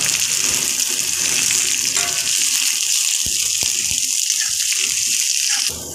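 Chopped onions frying in hot oil in a metal kadai: a steady, loud sizzle, with a few light clicks from the spatula stirring them. The sizzle cuts off suddenly near the end.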